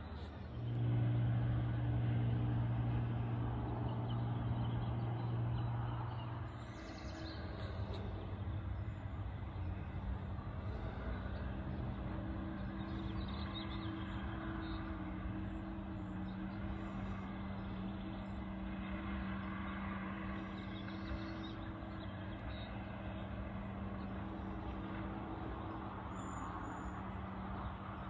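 Diesel engine of a tracked Timbco forestry machine running at a distance, a steady low hum that is louder for the first six seconds or so, then settles.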